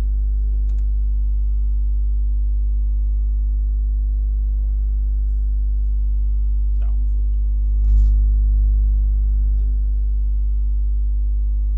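Steady electrical mains hum with a stack of overtones, carried on the recording's audio line. A few faint clicks sound over it, with a louder short thump about eight seconds in.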